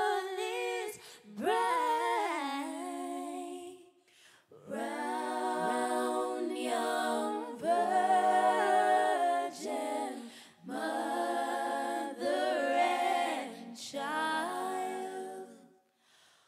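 Background music of voices singing without instruments, in long held notes, phrase after phrase with short breaks between them.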